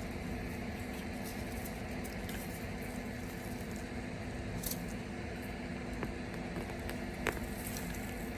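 Soil rustling and crunching as hands dig through a garden bed for sweet potatoes, over a steady low hum, with a couple of faint clicks in the second half.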